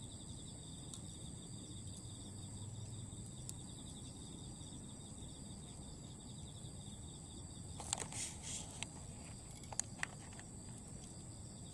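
Autumn insects chirping in several steady, high trills, with occasional sharp crackles from glowing Iwate cut charcoal embers in a fire pit. The crackles bunch together about eight seconds in.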